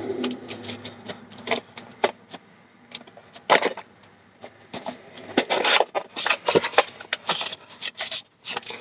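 A package being opened by hand: irregular crackling, rustling and clicking of packaging, with louder bursts of handling about a third of the way in and again past the middle.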